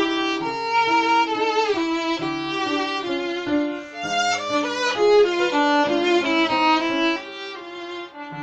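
Violin playing a bowed melody with upright piano accompaniment, the notes changing every fraction of a second.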